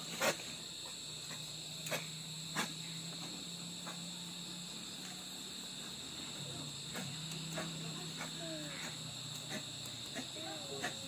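Crickets chirring steadily, with a few sharp clicks over it, the loudest just after the start.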